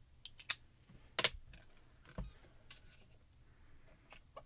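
A few scattered light clicks and taps of small plastic items, the sharpest about a second in, with a duller knock about two seconds in: a small ink cube dabbed onto clear photopolymer stamps and put down.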